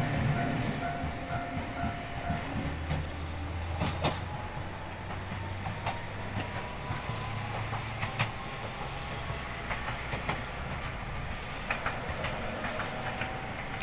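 Toyama Chiho Railway 14760-series electric train running at a steady pace, its wheels clicking sharply over rail joints several times over a steady low rumble, with a faint motor whine.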